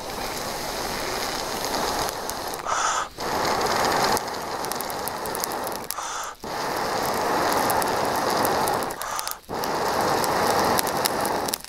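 Small wood fire crackling in a camp stove under a pot of rice on the boil, with a steady hiss and fine crackles. The sound drops out briefly three times.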